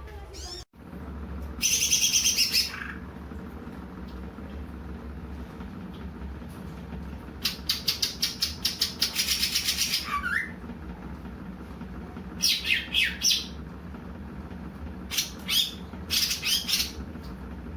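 Cucak ijo (leafbird) singing in separate high phrases: a short burst early, a long rapid run of notes ending in a falling note midway, then shorter groups of notes, over a steady low hum.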